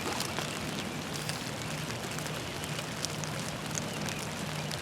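Steady rain falling, with many small raindrop ticks close by.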